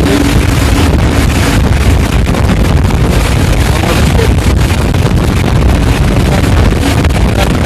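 Heavy wind buffeting the microphone over the steady rumble of a vehicle travelling at speed, heard at an open window.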